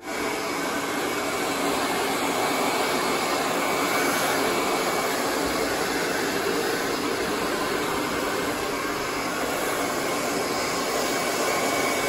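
AGARO 2000-watt hair dryer with its narrow concentrator nozzle running steadily: a loud, even rush of blown air with a faint steady high whine.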